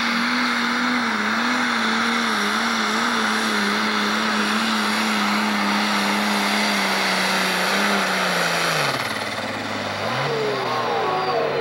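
International pro stock pulling tractor's turbocharged diesel engine running flat out while it drags the weight sled, its pitch holding high and wavering slightly. About nine seconds in the revs fall sharply as the tractor is pulled down at the end of its run, with a brief blip after.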